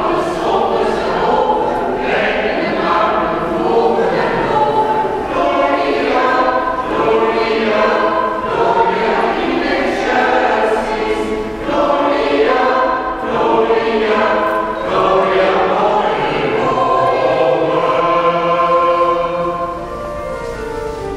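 Choir singing a hymn in a church, several voices in phrases of long held notes, a little quieter near the end.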